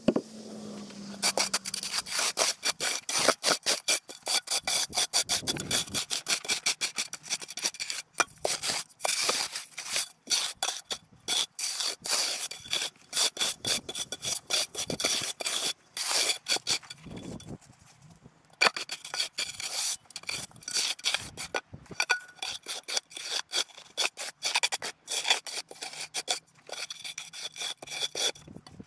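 Shovel scraping and cutting into soil in a rapid run of gritty strokes, with a brief pause about 18 seconds in.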